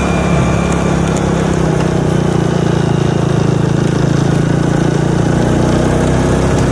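Motorcycle engine running steadily under way, heard from the rider's own bike, over a continuous rush of road and air noise.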